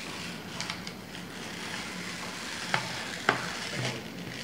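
Hands handling a plastic Cricut FabricGrip cutting mat and paper on a table. There is a faint crackly rustling with a few sharp light taps and clicks, the loudest just over three seconds in.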